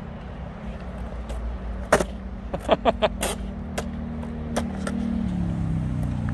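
Surfskateboard wheels rolling and carving on a smooth skatepark floor: a steady low rumble, with several sharp clicks and knocks from the board a couple of seconds in.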